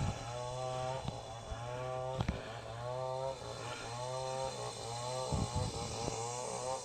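A small engine running, its whine wavering in pitch in surges of about a second, over a steady low hum.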